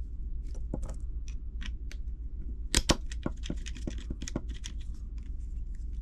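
Small plastic clicks and rattles as a GoPro action camera is fitted onto its plastic snap mount and thumbscrew, with two sharp, louder snaps close together a little under three seconds in. A steady low hum runs underneath.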